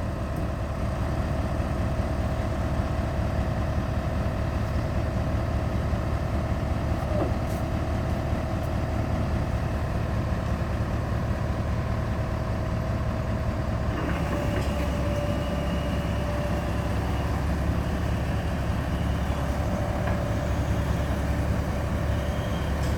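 Hitachi EX100-2 excavator's diesel engine running steadily, with a steady whine on top that changes pitch slightly about fourteen seconds in.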